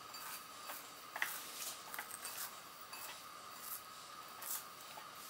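Faint scattered clicks and soft rustles of crushed vermicelli being stirred with melted butter in a bowl.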